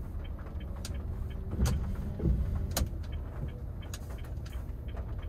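Inside the cabin of a manual Honda Brio, the engine running at low revs and the tyres rumbling as the car pulls away slowly in first gear, with a few sharp clicks.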